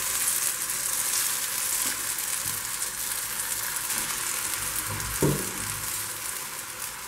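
Moong dal batter sizzling in hot oil on a non-stick tawa while a steel spoon spreads it out, the sizzle steady and slowly fading. One short knock about five seconds in.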